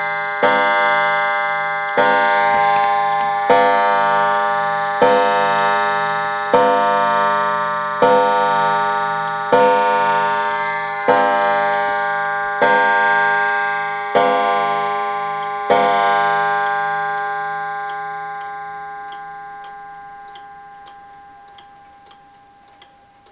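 Lincoln regulator wall clock striking the hour on its spiral gong: a hammer strikes the coiled gong eleven times, about one stroke every second and a half, each a bright ringing note. After the last stroke about 16 seconds in, the gong's ring slowly dies away while the pendulum ticks faintly.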